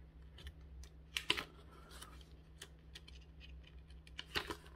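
Paper instruction booklet handled and opened by hand: light crackles and flicks of paper, louder twice, about a second in and near the end.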